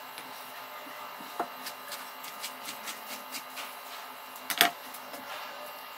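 Kitchen knife chopping thawed spinach on a wooden cutting board: quick, light taps at about three a second, with a louder knock about four and a half seconds in.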